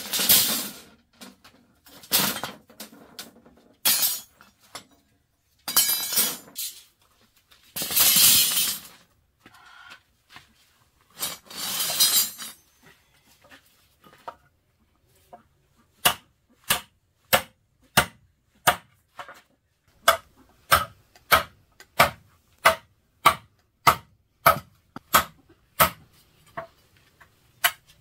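Gravel and sand being shovelled in repeated rough scoops about two seconds apart, then a steady run of sharp knocks, a little under two a second, from about halfway.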